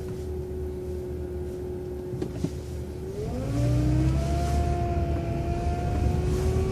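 Transit bus waiting with a steady drivetrain whine over a low engine rumble, then pulling away about three seconds in: the whine rises in pitch and the engine gets louder as it accelerates through the turn.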